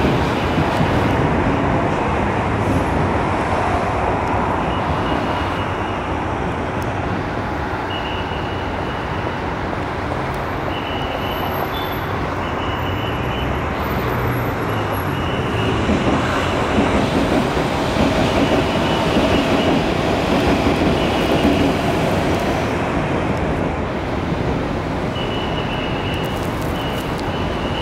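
Steady loud rumble of passing vehicles, with a faint high-pitched whine that comes and goes.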